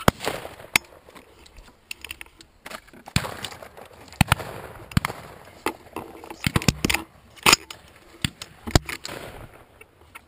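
Dry twigs and weed stalks scraping and snapping against a gun-mounted camera as it is carried through brush: an irregular run of sharp clicks and knocks with rustling in between, loudest about a second in and again around seven and a half seconds.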